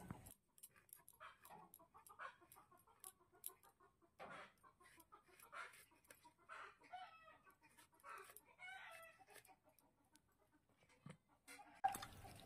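Faint hen clucking in short calls, over soft clicks of pointed gourd being sliced on a boti blade. Near the end, hands swish the pieces in a steel bowl of water.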